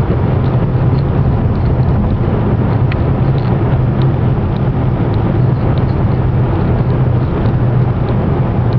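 Car's engine and tyres heard from inside the cabin while cruising at a steady speed: a continuous low drone with no change in pace.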